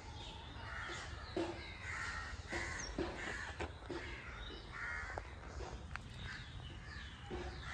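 Crows cawing over and over in the background, a harsh call every half second to a second, with a few light knocks mixed in.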